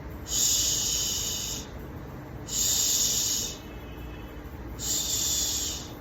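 A person voicing the isolated 'sh' consonant /ʃ/, a hiss held for about a second, three times with short gaps between.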